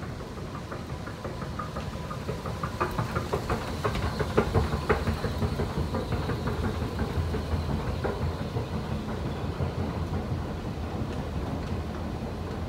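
Long metro-station escalator running: a steady low machine hum, with a busy run of clicks and clacks a couple of seconds in that thins out later.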